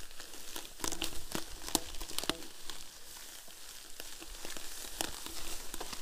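Mountain bike rolling through tall grass and undergrowth: a steady crackle of stems and twigs brushing and snapping against the tyres and frame, with many sharp clicks, loudest about two seconds in.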